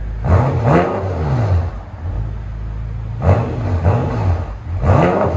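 BMW M6's 4.4-litre twin-turbo V8, mufflers deleted for straight pipe, free-revved on the lift through its quad tips. It gives quick blips that each rise sharply in pitch and fall back, in pairs near the start and again after a pause of about a second and a half, with the engine idling between them.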